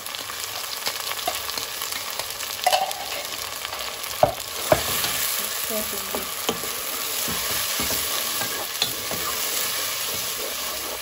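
Ginger, garlic and green chilli paste sizzling in hot oil with browned onions in a nonstick pan, while a wooden spoon stirs and scrapes through it, with a few sharper knocks of the spoon against the pan. The sizzle grows louder about five seconds in. The paste is being fried to cook off its raw taste.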